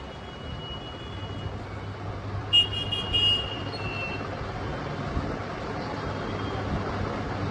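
LG 8 kg top-load inverter washing machine's motor humming steadily in spin, straining against a gearbox that will not turn the drum: the gearbox is failed and leaking oil. A thin high whine comes and goes twice.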